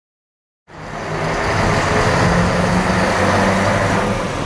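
Silence, then about two-thirds of a second in, a heavy recovery truck's diesel engine cuts in suddenly, running steadily as it tows a truck behind it.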